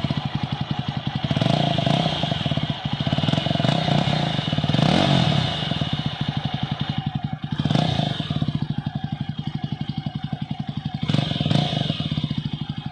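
Yezdi Scrambler's single-cylinder engine idling with its main silencer removed, giving an open, unmuffled exhaust note. It is blipped up in short revs several times.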